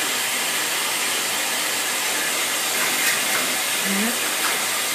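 Water running steadily into a bathtub during a dog's bath, an even hiss throughout.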